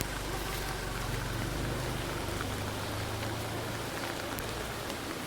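Steady rain falling, with a few scattered drip ticks and a low steady hum underneath.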